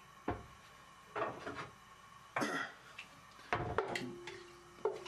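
A wooden spoon knocking and scraping against a metal cooking pot while stirring cloves in hot oil. There are about five separate knocks, roughly a second apart.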